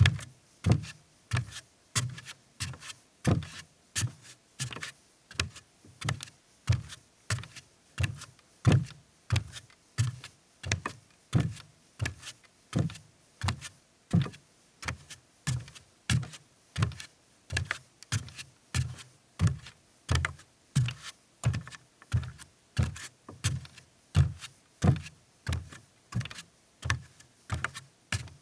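A woman's bare feet walking on a deck: steady, evenly paced footsteps, about three every two seconds, each a dull low thud with a light slap.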